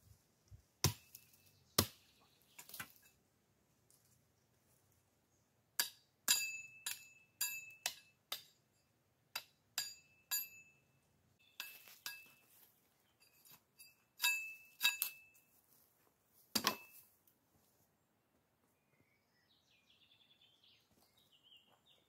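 A small hatchet chopping and striking sticks. A few sharp chops come first, then a quick run of blows that each leave a short metallic ring, and a heavier thud about two-thirds of the way in. Faint bird chirps come near the end.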